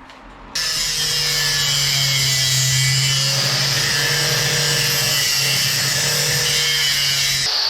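Angle grinder cutting thin sheet metal, starting abruptly about half a second in: a steady motor hum under a loud hiss of the disc on metal. The hiss drops away just before the end.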